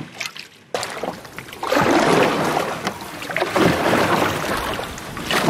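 Water rushing and splashing around a canoe as it is paddled over a water-covered beaver dam: a steady noisy wash with scattered knocks, starting abruptly after a brief lull.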